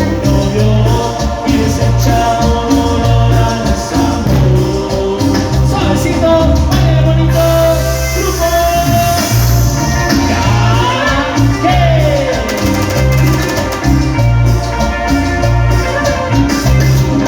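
Latin dance band music played live, with a steady repeating bass line, melody lines and shaker-type percussion.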